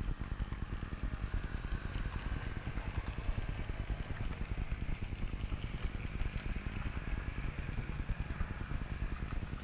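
Model train running on a layout: a steady low rumble and rapid clatter of wheels on track, with a faint high motor whine.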